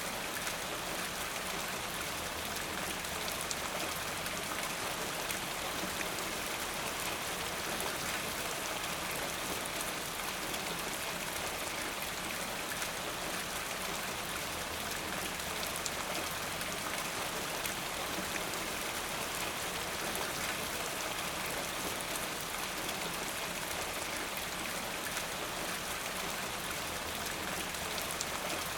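Steady rain falling, an even hiss of many drops with fine individual drop ticks throughout.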